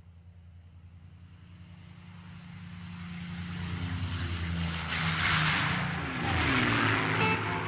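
A low, engine-like drone swells steadily louder, peaks with a rush of noise and then drops in pitch like a vehicle passing by. Pitched music notes come in near the end, leading into guitar music.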